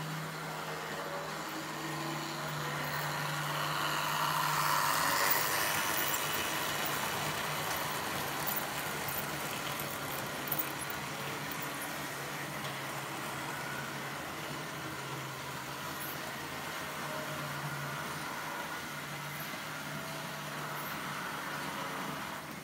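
Märklin H0 model train running on Märklin K-track: a steady motor hum with rolling wheel noise that swells as the train comes close about five seconds in, then slowly fades, with a couple of light clicks midway.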